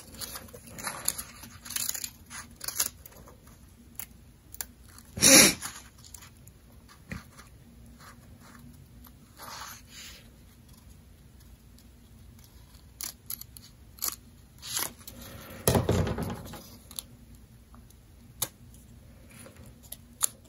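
Scissors snipping through folded, glued printer paper in short, scattered cuts, with paper rustling as it is handled; two louder crunches come about five seconds in and near sixteen seconds.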